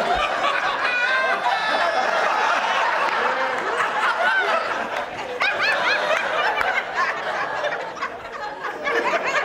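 Live audience laughing hard, many voices at once, loud and sustained for about nine seconds after a punchline.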